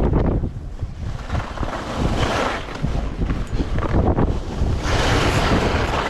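Strong wind buffeting the microphone with a deep, unsteady rumble, and a rushing hiss that swells twice, about two seconds in and again near the end.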